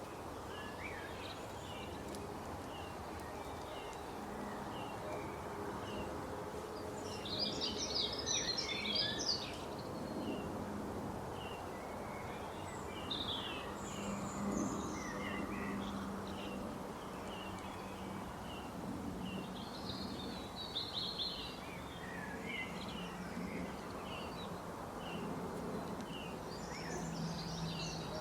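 Small birds chirping and calling in short, scattered notes, with a busier flurry of calls about seven to nine seconds in, over a steady low background hum.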